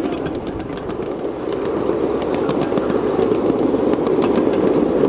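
1½-inch-scale ride-on train rolling along its track: a steady rumble with scattered sharp clicks of the wheels over the rail joints.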